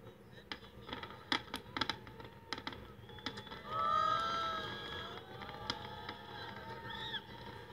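Fireworks going off: a quick run of sharp pops and cracks in the first few seconds, then several rising-and-falling wavering tones over a steady background hum.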